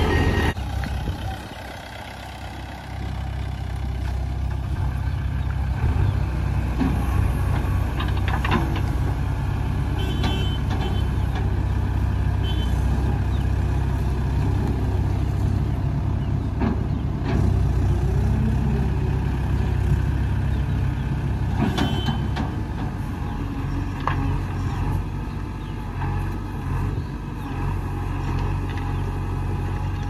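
Diesel engines of a JCB 3DX backhoe loader and a Mahindra 575 tractor running steadily, with a few short clanks.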